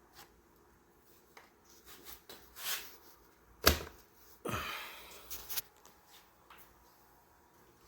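Hands working the newly wired headlight setup to test it: scattered light clicks, one sharp click about halfway through, then a brief rustle and a couple more clicks.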